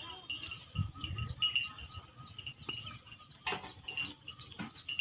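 Goats bleating, with a bleat about three and a half seconds in. A steady train of short, high-pitched chirping notes runs behind.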